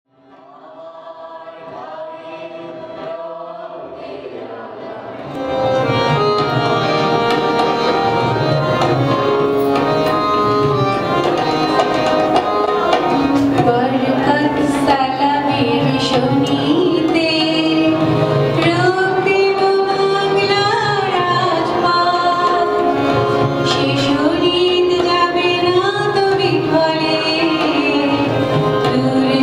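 Live Bengali song with harmonium and tabla. A harmonium introduction fades in, and about five seconds in the tabla and the rest of the ensemble join. Later a woman sings the melody.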